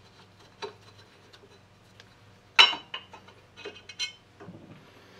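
Light metal clicks and clinks of a screwdriver and small steel screws as the guard screws on a Hendey lathe's cone head are taken out: one sharp, briefly ringing clink about halfway through, with a few fainter clicks around it.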